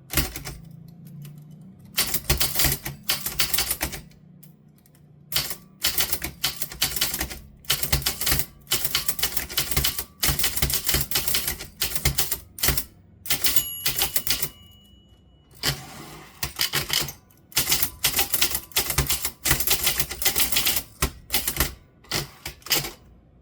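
Typewriter being typed on: quick runs of sharp key strikes, each lasting a second or two, separated by short pauses.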